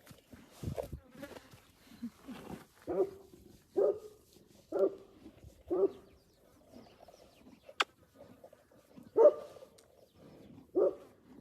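An animal calling in a series of short pitched calls, about one a second, with a pause in the middle before two more, the louder of them near the end. A single sharp click falls in the pause.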